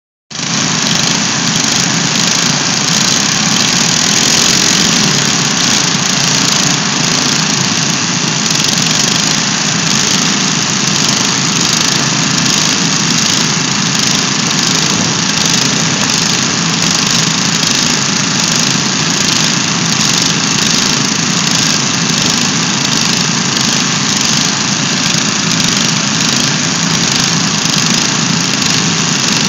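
Riding lawn mower engines running steadily together, a dense unbroken engine noise that starts abruptly right at the beginning.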